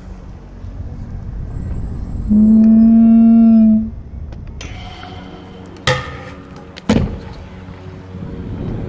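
A loud steady held tone lasting about a second and a half, then two sharp knocks about a second apart as a stunt scooter's deck and wheels hit a concrete grind box.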